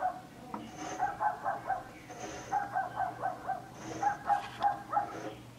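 Small Maltese dog barking in three quick runs of about five short, high yaps each.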